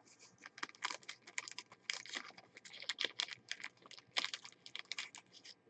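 Typing on a computer keyboard: an irregular run of quick key clicks, several a second.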